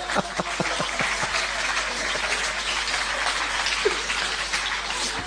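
Audience applauding: a dense patter of many hands clapping at once.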